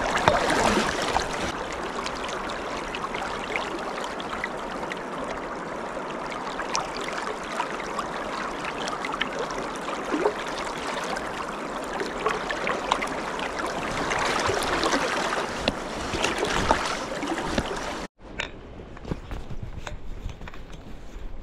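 Fast-flowing river water rushing and splashing, the River Tay running high after rain. About 18 seconds in it cuts off abruptly to a quieter background with a few soft knocks.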